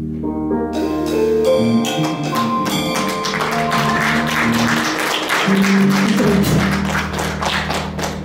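Small live band playing the closing passage of a song: electric guitar, bass guitar, piano and drums, with a run of picked notes under a second in over a held bass note. A dense, noisy wash of sound joins from about three seconds in.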